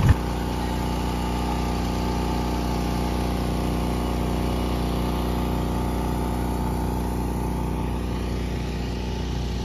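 Small portable gasoline generator running at a steady speed, an even engine hum that holds one pitch throughout.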